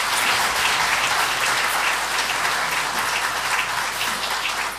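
Audience applauding in a hall, a dense steady clapping that begins to thin out near the end.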